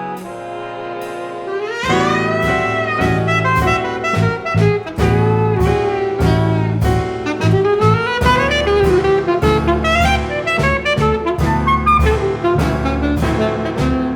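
Jazz ensemble with strings playing. A held chord gives way about two seconds in to bass and drums, with an alto saxophone line weaving over them.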